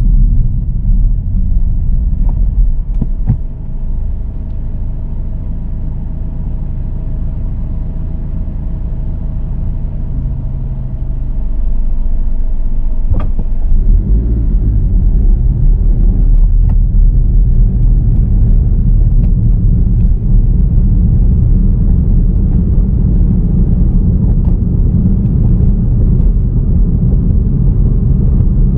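Steady low rumble of a car driving on the road, tyre and engine noise, growing louder about twelve seconds in, with a couple of faint knocks.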